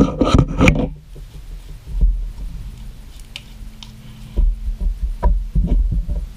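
Hands kneading and squeezing soft slime and pressing it onto a tabletop: scattered soft squelches, small clicks and dull thumps, after a short loud burst at the very start.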